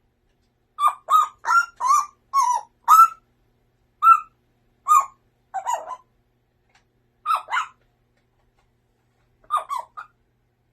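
A parrot making short, pitched calls, each bending up and then down. A quick run of six comes in the first three seconds, then single calls and pairs follow every second or two with silent gaps between them.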